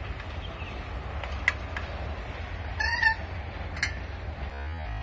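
Low steady rumble of wind on the microphone, with a few light clicks and one short high squeal about three seconds in.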